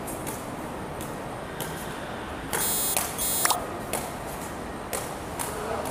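Two short, harsh electronic beeps a little over two seconds in, the second following about a quarter second after the first. They sound over a steady background hum with scattered light clicks.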